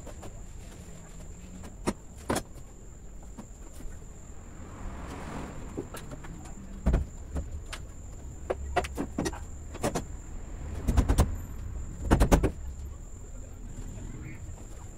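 Scattered knocks and clicks of hand work on the cab of a 1961 Scania 75 truck, with two quick runs of sharp taps about eleven and twelve seconds in, over a low steady background hum.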